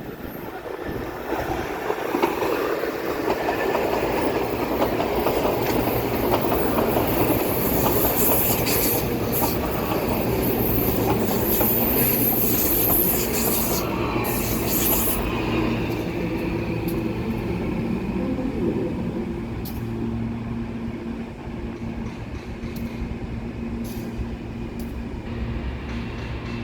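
A train running along the rails at close range, growing louder over the first few seconds. A high wheel squeal and hiss from about eight to fifteen seconds in, then a steadier low hum with scattered clicks from the rail joints.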